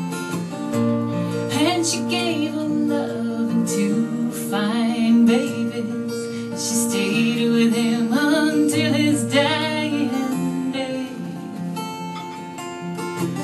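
Instrumental break in a live acoustic song: steadily played acoustic guitar chords, with a wavering melodic lead line played over them in several short phrases.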